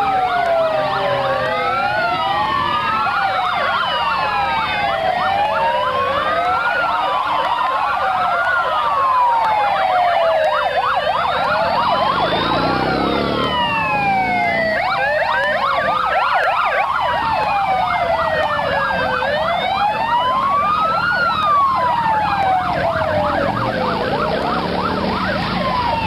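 Several emergency-vehicle sirens wailing at once, each rising and falling slowly and over and over at slightly different pitches, with a faster yelping warble mixed in through the middle.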